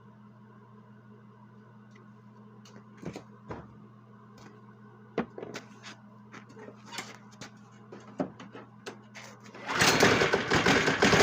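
Light clicks and knocks of handling, then, about ten seconds in, a Yard Machine snow blower's small engine is pulled over and bursts into a loud, rapid sputtering run for a couple of seconds. A steady low hum lies under the quieter part.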